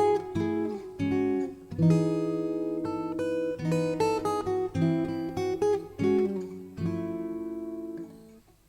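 Background music: an acoustic guitar playing a melody in plucked notes that ring and decay, dying away near the end.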